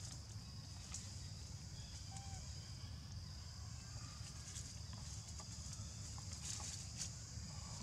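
Outdoor ambience: a steady high-pitched insect drone, with a low rumble underneath and a few faint chirps.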